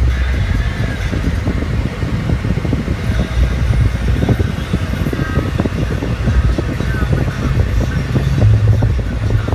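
Car cabin noise at freeway speed: a steady low rumble of tyres on concrete pavement and the engine, with a rough, uneven texture over it.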